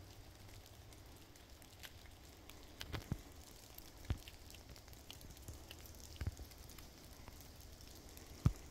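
Footsteps walking on a forest floor of dry leaves and twigs: a handful of uneven footfalls a second or two apart, with light crackling between them.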